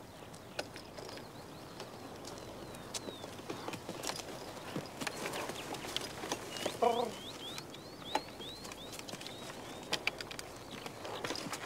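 A horse-drawn plough at work in a field: scattered clicks and knocks of hooves and harness over a light rustle, with birds chirping. A brief louder call comes a little past halfway, followed by a run of short repeated bird chirps.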